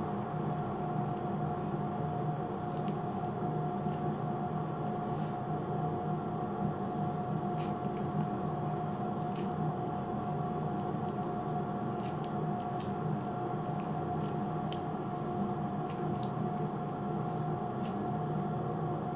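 Sugar-wax paste being pressed onto and pulled off underarm skin, giving scattered short sticky clicks and squishes, over a steady hum with a constant tone.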